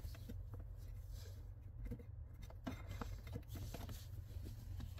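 Faint handling noises: scattered small clicks, taps and rustles as a hand fits a bolt into a bracket under a vehicle's dashboard, over a steady low rumble.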